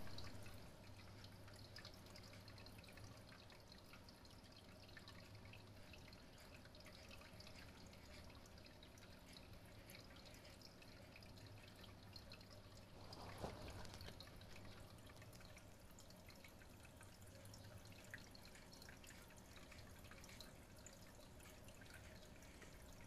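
Faint water dripping and trickling from a running aquarium filter, over a low steady hum. A single soft knock comes about thirteen seconds in.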